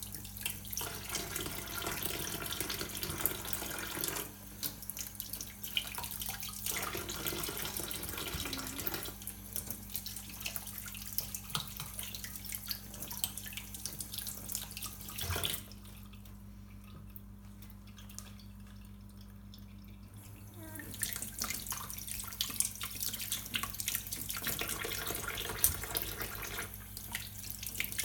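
Water running from a tap into a sink, splashing with small clicks and knocks, shut off for several seconds a little past the middle and then running again.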